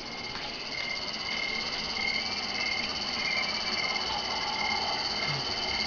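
Evening savanna ambience from a wildlife documentary playing on a television: a steady chorus of frogs and insects chirping.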